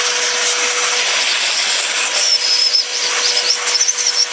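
Construction vacuum cleaner running in blower mode, a steady motor whine under a strong rush of air, as used to blow bees off frames of honey.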